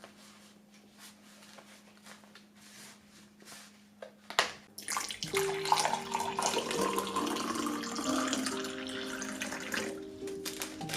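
Quiet room with a few light clicks, then water running steadily from a tap, starting about five seconds in, while soft background music with held notes begins at the same time.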